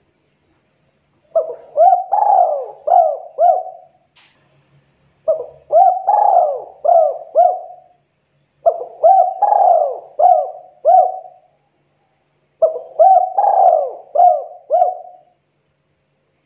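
Spotted dove (tekukur) cooing: four song phrases about four seconds apart, each a quick run of about five short coos, the second coo the loudest and longest.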